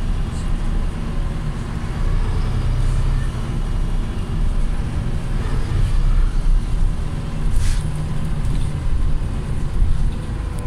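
Volvo B7TL double-decker bus with its 7.3-litre six-cylinder diesel running as it drives along, heard inside the passenger cabin as a steady low rumble with road noise. A short rattle comes about seven and a half seconds in.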